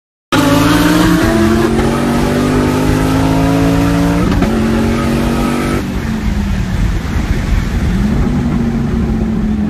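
Twin-turbo Chevrolet Camaro SS V8 heard from inside the cabin, accelerating hard after a brief silence: its pitch climbs through the gears with upshifts about one and four and a half seconds in. Near six seconds it eases off, then picks up again near eight seconds and holds a steady note.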